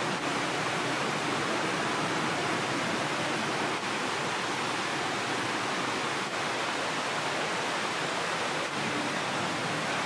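Steady rushing of flowing water from the mountain stream and falls, an even hiss with no changes.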